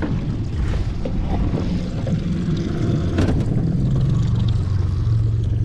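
Mercury outboard motor running steadily, a low hum under wind and water noise, with a single sharp knock about three seconds in.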